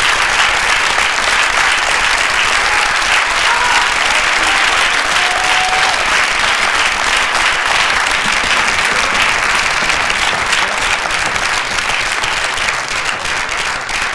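Theatre audience applauding steadily; near the end the clapping grows a little thinner, with single claps standing out.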